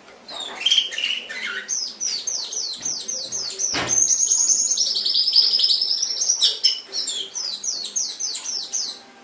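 Domestic canary singing a long, fast song of rapid repeated falling high notes, with a sustained rolling trill in the middle; the song stops just before the end. A single short knock is heard near the middle.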